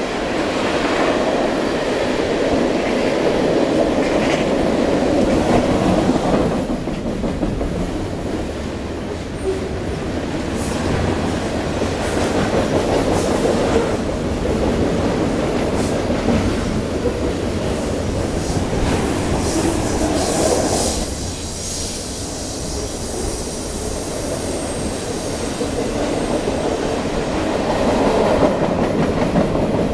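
Freight train cars rolling past: a steady rumble of steel wheels on rail with clicks at the rail joints. A thin, high wheel squeal comes through for a few seconds past the middle.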